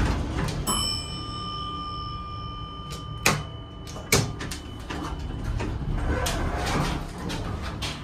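Heights elevator's stainless-steel doors sliding shut, with a chime ringing about a second in and fading, and two sharp knocks a little under a second apart around three and four seconds in.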